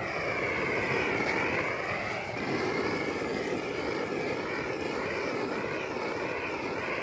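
Lincoln Electric Inferno propane roofing torch burning steadily as its flame is swept over plastic shrink film: a continuous rushing noise with a wavering tone on top, sped up to double speed.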